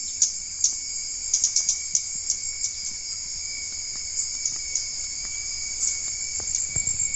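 Steady, shrill chorus of insects, crickets or cicadas, with a thinner steady whine below it. Short sharp ticks or chips come scattered over it, mostly in the first few seconds.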